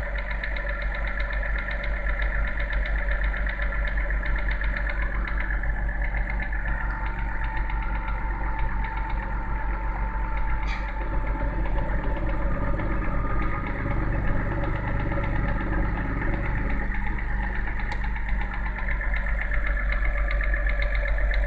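BMW N52B30 3.0-litre straight-six idling with a steady, rapid knock. It is the cold-start knock that goes away once the engine is warm and the idle drops.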